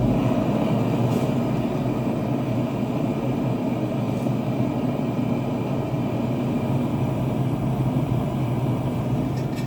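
Propane gas forge running, its homemade Frosty T burner giving a loud, steady rushing noise of gas and flame.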